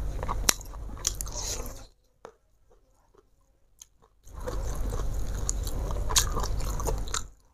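Close-miked chewing and biting, with wet mouth clicks and some crunching, while eating by hand. It stops for about two seconds midway and then resumes.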